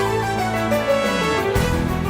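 Instrumental music: a held melody over sustained bass notes, with one line gliding down in pitch and a sharp accented hit near the end.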